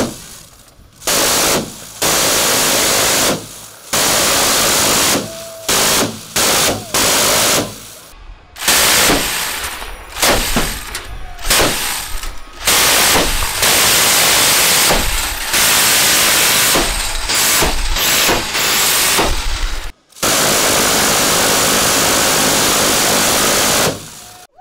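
Quad-mounted M134 Miniguns, 7.62×51mm six-barrel electric rotary machine guns, firing a series of bursts. At this rate of fire each burst is one continuous ripping noise rather than separate shots. The bursts run from under a second to about four seconds long, with short gaps between them.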